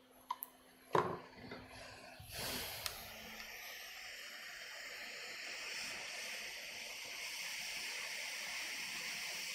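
A couple of clicks and a knock, then about two seconds in a Quick 861DW hot air rework station starts blowing, a steady hiss of air. The hot air is reflowing solder balls onto a chip through a reballing stencil.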